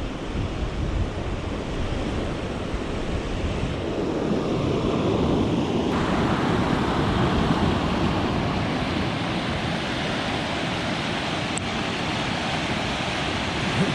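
Wind noise on the microphone while riding, then, from about five seconds in, the steady rush of a river in flood, running high and fast over its banks. The river is raging.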